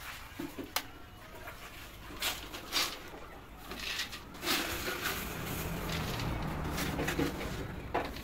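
Kitchen work clattering: a few short, sharp knocks and clinks, with a low steady hum joining about halfway through.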